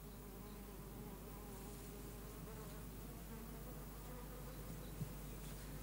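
Faint buzzing of flying insects, the drone wavering slightly in pitch, over a steady low hum.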